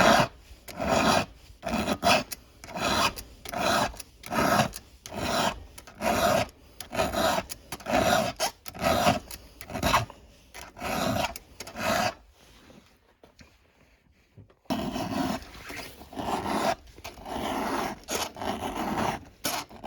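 Hand file scraping across a chainsaw chain cutter tooth in repeated strokes, about one to two a second, with a short pause a little past the middle before the filing resumes. The strokes are filing the dull, still squared-off front of the tooth's top plate back to a sharp edge.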